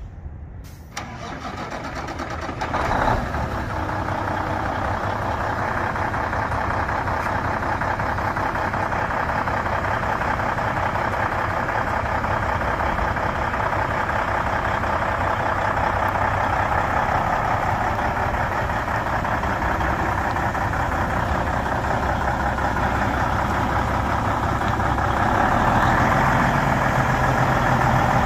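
1998 Volvo VN semi truck's Cummins N14 six-cylinder diesel cranking and catching about three seconds in, then running steadily at idle. It grows somewhat louder near the end.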